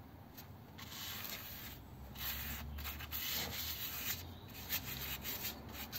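Gloved hand rubbing and wiping across the freshly machined face of a flathead Ford flywheel, a dry scuffing that comes and goes in irregular strokes.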